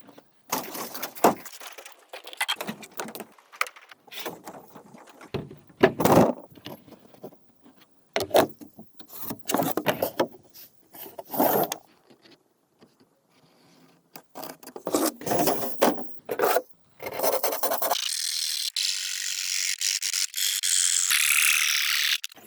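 Building work on a bamboo structure: a run of uneven knocks, clicks, scrapes and rattles from tools and materials being handled, then a steady high-pitched hiss for the last five seconds or so.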